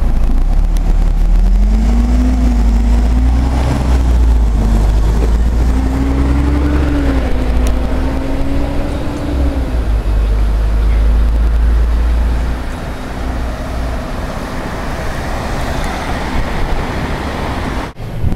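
Road traffic: a vehicle engine rises and wavers in pitch as it pulls away, over a heavy low rumble that drops off about two-thirds of the way through.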